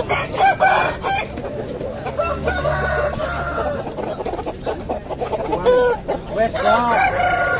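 Bangkok gamecocks crowing and clucking, several calls overlapping one another, with the loudest crows near the end.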